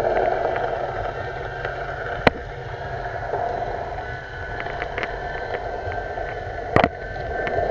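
Underwater ambience picked up by a submerged camera: a steady muffled drone with faint steady tones over it, broken by two sharp knocks, about two seconds in and near the end.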